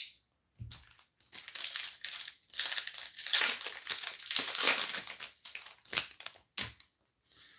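Foil wrapper of a baseball card pack crinkling as it is torn open and handled: several seconds of loud rustling, then two short crackles near the end.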